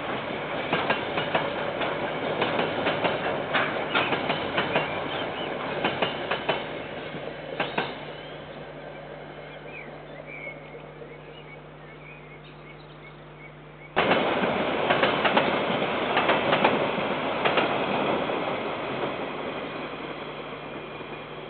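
Freight train rolling past, wheels clicking irregularly over the rail joints, the sound fading away over several seconds to a faint steady hum. Partway through it cuts abruptly to another passing train, loud again with clicking wheels, then slowly fading.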